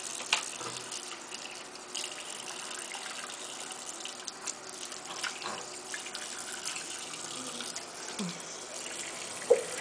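Tap running steadily into a washbasin, an even splashing hiss with a few small knocks and splashes.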